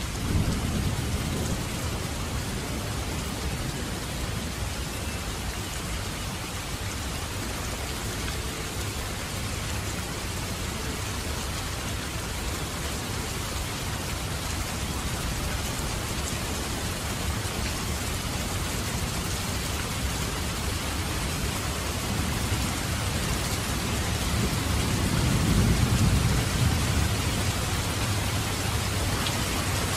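Steady rain falling, an even hiss, with low rumbles of distant thunder swelling about a second in and again near the end.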